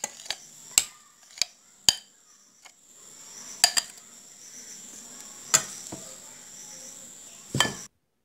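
Metal spoon clinking and scraping against a bowl as thick chocolate cake batter is scraped out of it: about ten sharp, irregular clinks over a faint steady hiss. The sound cuts off suddenly near the end.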